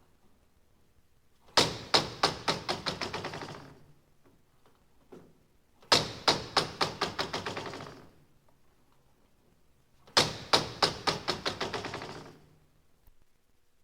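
Something falling and clattering to rest, three times over: each a sharp first hit followed by a rapid run of smaller bouncing knocks that fade out over about two seconds.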